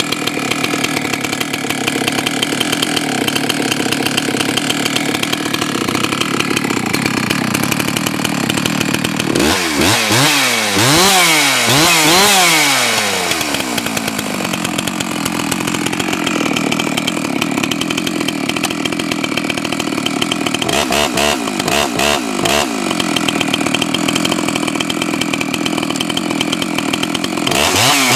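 Husqvarna 288 XP two-stroke chainsaw running at a steady idle, then revved up and down in quick throttle blips about ten seconds in. More short blips come around twenty seconds in and again near the end.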